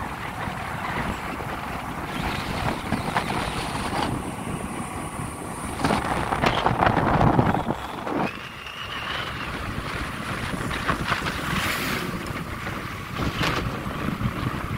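Wind buffeting the microphone of a moving vehicle, over steady road and engine noise. The wind swells for about two seconds roughly six seconds in.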